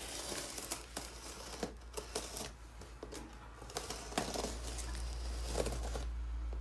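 Small hand knife slicing along clear packing tape on a cardboard box seam: irregular scraping and crinkling of tape and cardboard with scattered small clicks.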